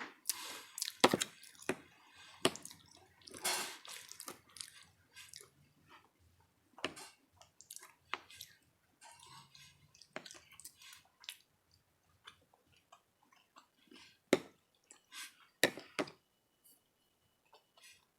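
Close-miked wet chewing and mouth sounds from a person eating, irregular, with several sharp clicks scattered through, the loudest about a second in.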